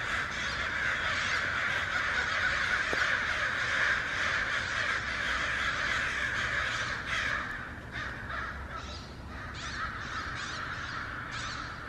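A large flock of American crows cawing all at once in a dense, overlapping din that thins after about seven seconds into separate, distinct caws.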